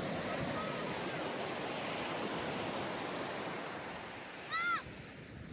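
Ocean waves washing onto a sandy beach, a steady surf hiss that slowly eases toward the end. A short pitched call that rises and falls cuts through about four and a half seconds in.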